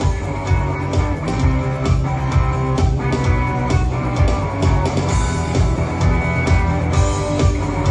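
Rock music: guitar playing over a steady drum beat and bass, with drum hits about twice a second.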